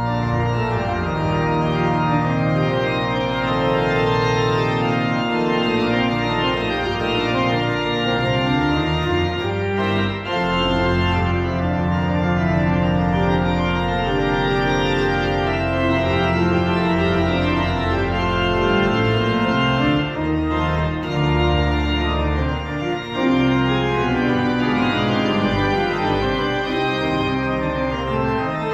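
Church pipe organ playing the postlude at the close of a service: full sustained chords over long low bass notes, with brief breaks between phrases about ten and twenty-three seconds in.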